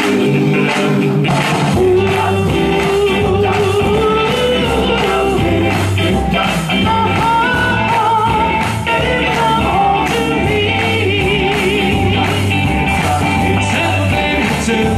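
Live band playing an upbeat rock-and-roll song, with a steady drum beat and a bass line coming in about a second in, under held vocal or instrument notes.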